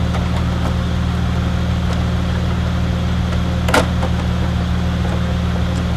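Car engine idling steadily, with one sharp click a little under four seconds in.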